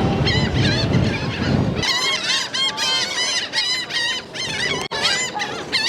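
A flock of gulls crowding a person feeding them, many overlapping high cries that grow thick about two seconds in. Under the early cries there is a low rumble, which stops at about that point.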